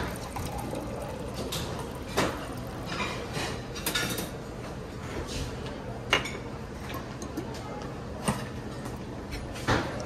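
Glasses and tableware clinking and knocking on a buffet counter, a sharp knock about every two seconds, over a steady room hum.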